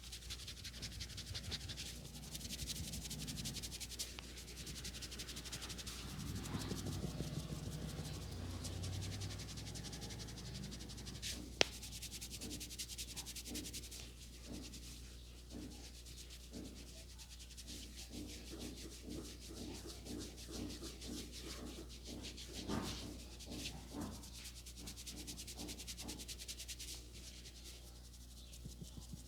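Hands rubbing and scratching through hair and over the scalp in a barber's head massage: a close, steady, scratchy rustle. A single sharp click comes a little before the middle, and a run of short, rhythmic rubbing strokes follows in the second half.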